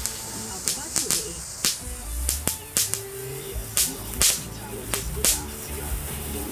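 Small children's ground fountain burning, giving off sharp crackling pops about once a second over a faint hiss of sparks, the pops spaced out and the loudest coming past the middle.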